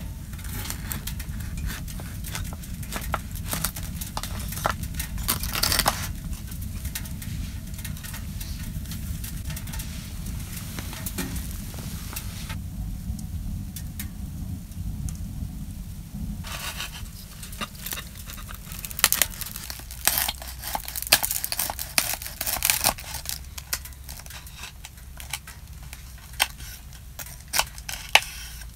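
Wood fire crackling in a Winnerwell Nomad View tent stove, along with the crunch of a knife cutting through a crusty loaf of bread. Sharp crackles and crunches come over a steady low rumble, thickest in the second half.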